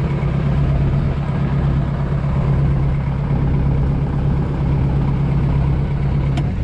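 Fishing boat's engine running steadily under way, a constant low drone, with one brief click just before the end.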